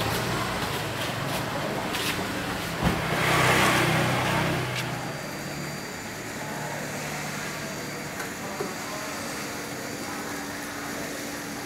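Motor vehicle traffic: an engine running with a vehicle swelling past about three seconds in. After about five seconds it gives way to a quieter, steady hum.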